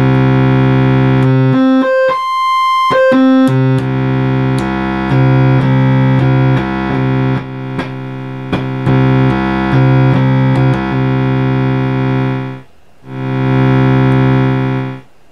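Oscillator 2 of a freshly serviced and calibrated 1977 Minimoog Model D sounding a held low note while its range switch is stepped. The pitch jumps up briefly about two seconds in, then the tone changes several times before the note stops and starts again near the end.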